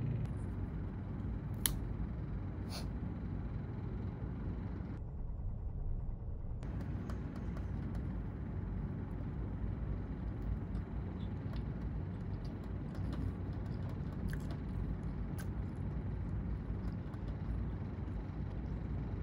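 Steady low background rumble, with scattered light clicks and taps from handling clear plastic clamshell food containers and wooden chopsticks; the two sharpest clicks come about two and three seconds in.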